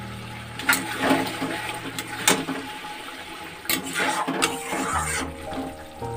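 Spatula stirring thick, simmering yogurt curry gravy in an aluminium kadai: wet squelching and bubbling, with a few sharp clinks of the spatula against the pan.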